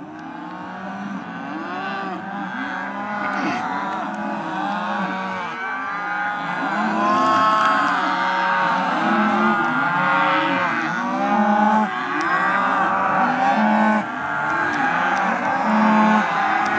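Many Hereford calves bawling at once, overlapping moos from all sides, the chorus growing louder over the first several seconds. This is the bawling of calves at weaning.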